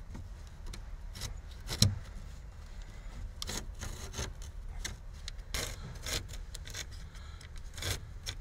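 Curved-edge carpet blade slicing through carpet-style headliner fabric, in short irregular scraping strokes, with one sharp knock about two seconds in.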